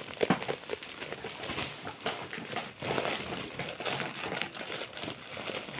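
Crinkling and rustling of a shiny metallic-film gift wrapper being handled and pulled open by hand, a run of irregular small crackles.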